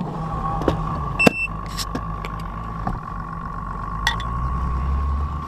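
Boat motor running steadily with a constant hum, its low rumble growing louder about four seconds in. A single sharp metallic clink about a second in.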